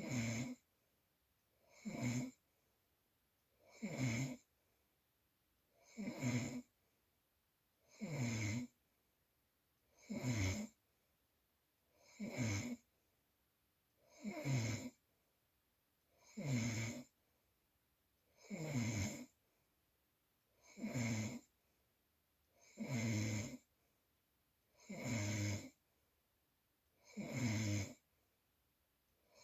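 Snoring: short, regular snores about every two seconds, each falling in pitch, with near silence between them.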